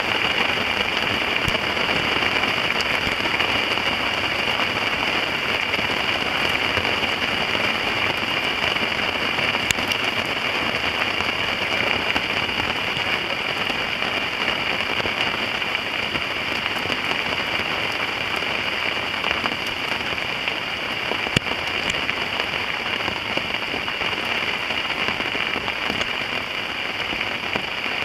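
Heavy rain falling steadily, a dense even hiss of drops with an occasional louder single drop or tick.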